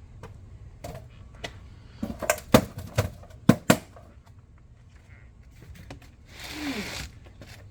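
Handling of a boxed part: a run of sharp knocks and taps about two to four seconds in, then a short scraping rustle near the end.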